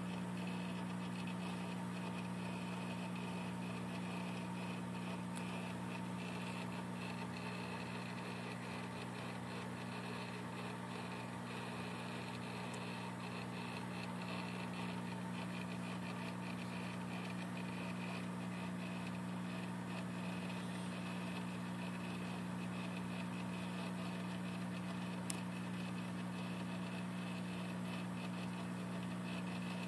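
Steady electrical hum of running aquarium equipment, with faint bubbling from air bubbles rising in the tank. There is one short click near the end.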